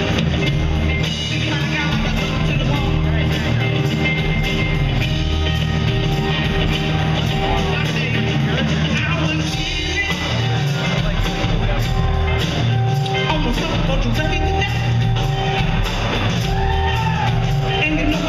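Live rock band playing: electric guitar, bass, keyboard and a Gretsch drum kit keeping a steady beat, with a woman singing at times.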